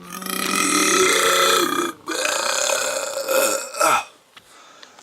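A person belching loudly twice in a row: two long burps of about two seconds each, the second ending about a second before the end.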